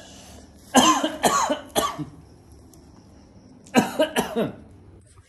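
A dog barking in two quick bursts of several short, sharp barks, the first about a second in and the second near four seconds.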